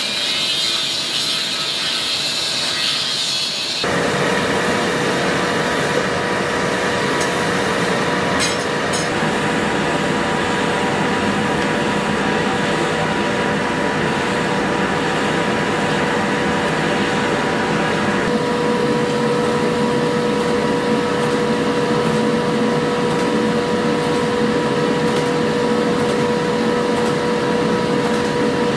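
A power tool's electric motor running steadily. A harsh rasping grind during the first few seconds stops about four seconds in, and the steady motor hum carries on.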